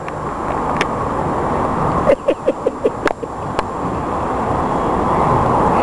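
Outdoor street noise with a steady rumble of traffic. About two seconds in comes a quick run of about six short sounds, and there are a few sharp clicks.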